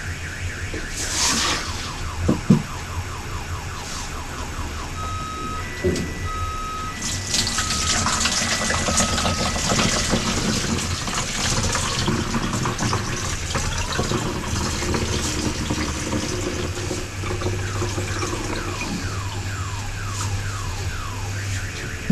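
Liquid being poured into a container. In the background an electronic alarm siren keeps cycling through repeated sweeping wails and, partway through, short beeps alternating between two pitches.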